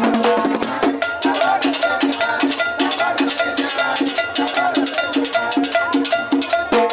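Cumbia played by a live band, with drums and percussion keeping a steady beat.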